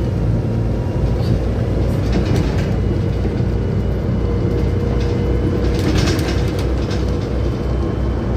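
Inside a Volvo B7TL double-decker bus on the move: steady diesel engine drone and road rumble, a steady whine from about three to six seconds in, and the body and fittings rattling around two and six seconds in.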